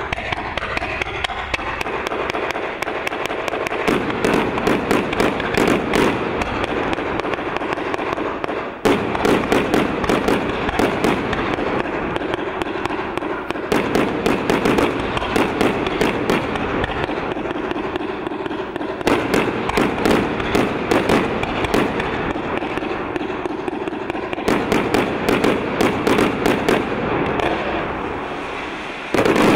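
ZI-shaped firework cake firing a continuous barrage: a steady rushing hiss of shots going up, with clusters of sharp cracks and pops about every five seconds and a loud cluster near the end.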